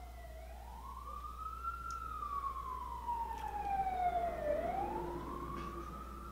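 Emergency vehicle siren wailing, its pitch slowly rising, falling and rising again in a cycle of about four seconds.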